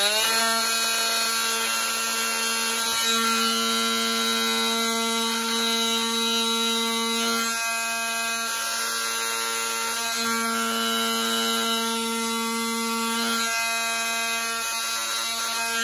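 Cordless oscillating multi-tool with a round blade, running as a steady high-pitched buzz while it cuts away the plastic lip of a helmet ear-muff cup. The buzz shifts slightly a few times and stops suddenly at the end.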